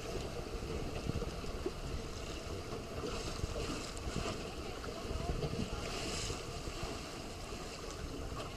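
Wind buffeting the microphone over choppy water, with water splashing and hissing that swells about three seconds in and again around six seconds.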